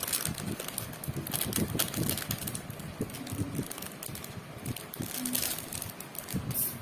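Crinkling and crackling of a foil trading-card pack wrapper being worked open by hand. It is a stubborn pack, giving a run of irregular crackles throughout.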